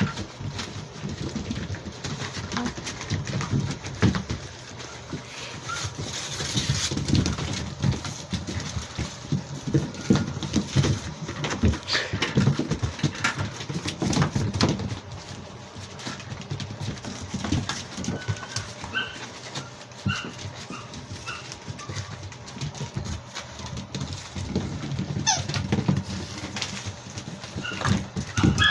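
Seven-week-old Labrador retriever puppies play-fighting on a tiled floor: scuffling, knocks and clicks of paws and toys, with a few short high squeaks in the middle stretch.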